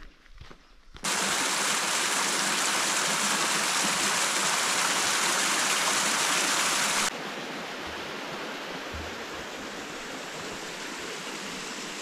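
Steady rushing water, like a mountain stream or small waterfall, starting abruptly about a second in, then dropping to a quieter rush at about seven seconds and cutting off at the end.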